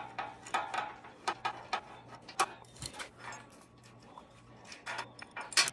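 Irregular metallic clicks and clinks of hand tools and bolts being handled as motor-mount bolts are taken back out, over a faint steady low hum.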